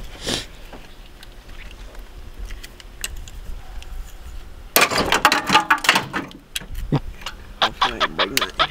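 Metal parts and tools clinking and rattling under a car's hood as hands work a component in the engine bay, quiet at first, then a busy run of sharp clicks and rattles from about halfway through.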